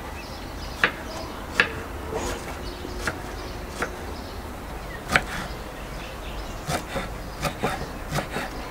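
Irregular sharp clicks and knocks, the loudest just under a second in, at about one and a half seconds and at about five seconds, coming more often near the end.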